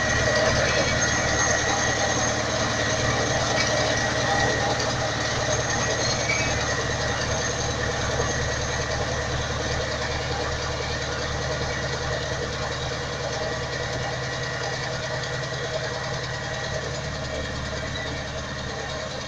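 Ursus C-360 tractor's four-cylinder diesel engine running steadily while working a vibrating potato digger, with a dense mechanical clatter over the engine note, slowly growing quieter.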